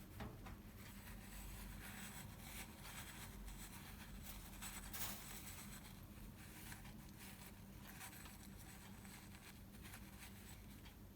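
Faint rustling and light scraping with a few soft clicks, over a low steady room hum.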